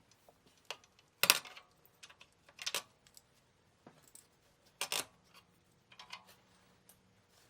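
Spacers being worked out of a La-Z-Boy rocker-recliner's rocker springs: a handful of separate sharp clicks and clatters of hard parts, the loudest about a second in.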